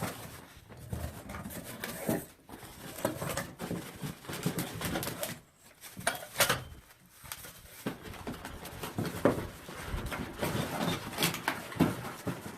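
Irregular rustling, tapping and knocking of packaging being handled as a boxed twin halogen work light is unpacked.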